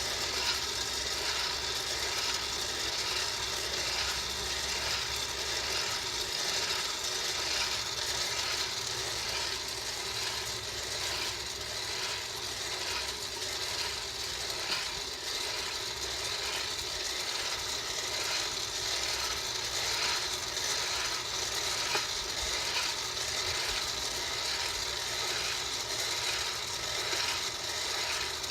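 Bar Well electric coffee roaster running: a steady hiss with a regular rhythmic rattle from the coffee beans being stirred in the roasting chamber. The beans are in early first crack, with only the occasional faint crack.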